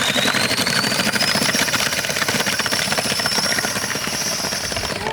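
RC car on wooden wheels driving off: its motor whines high, having just climbed in pitch, over a dense, constant rattle of the hard wheels on the ground.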